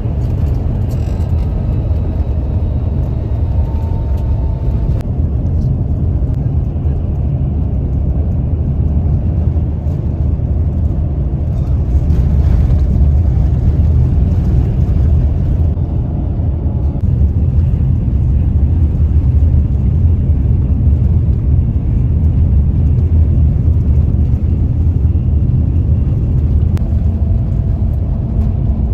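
Tour coach cabin noise while driving: a steady low rumble of engine and road noise heard from inside the bus.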